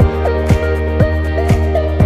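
Background music with a steady beat, a deep drum hit about twice a second under sustained notes and a sliding melody.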